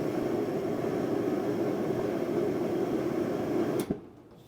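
Bauer forced-air propane heater running at its maximum setting, a steady rushing of burner and fan. Near the end a sharp click, and the sound falls away quickly as the heater is shut down.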